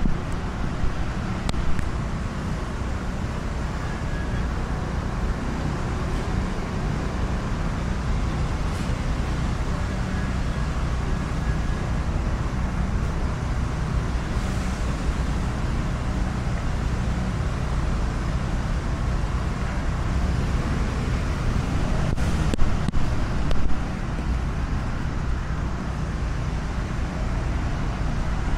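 Steady low rumble of a running motor vehicle engine, with a few short louder knocks about three quarters of the way through.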